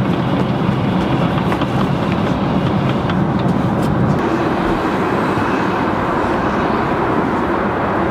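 Steady rushing cabin noise of an airliner in cruise flight, a mix of engine and airflow noise with a low hum underneath.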